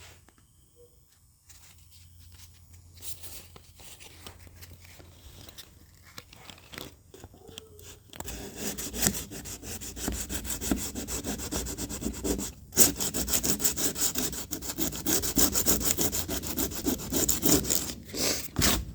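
Hand sanding a truck door panel: rapid back-and-forth rubbing strokes start about eight seconds in after a quieter stretch, with a brief pause partway through.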